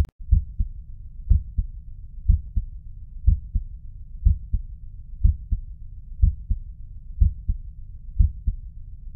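Heart sounds heard through a stethoscope: a steady lub-dub, about one beat a second. The first heart sound comes from mitral valve closure and is lower in pitch; the second comes from aortic valve closure and is higher.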